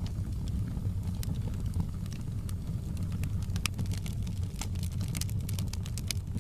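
Wood fire burning in a fireplace, crackling and popping irregularly over a steady low rumble of the flames. The pops come thicker in the second half.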